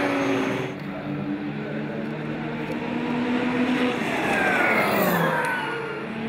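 Peugeot 908 HDi FAP race car's V12 turbodiesel engine running. A little past the middle its note falls steadily over a second or so as the car slows.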